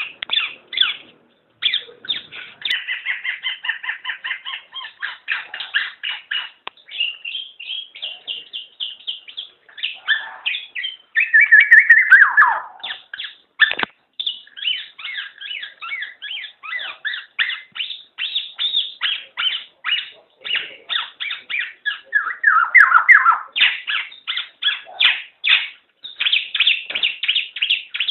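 Black-naped oriole (kepodang) calling in fast runs of short repeated notes, several a second. A louder call falls in pitch about twelve seconds in, and the calling grows loud again near the end.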